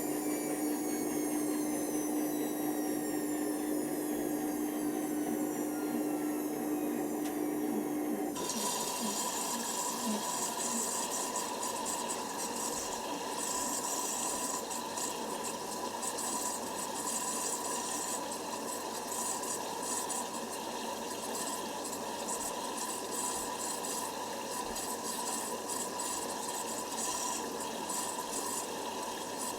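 Hoover Nextra washer dryer in a wash cycle: a steady motor hum with a whine falling slowly in pitch as the machine winds down. About eight seconds in it cuts off abruptly and water starts running into the machine with a steady hiss.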